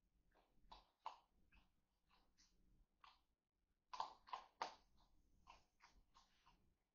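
Raccoons crunching dry pet kibble: an irregular string of short crunches and clicks, busiest about four seconds in.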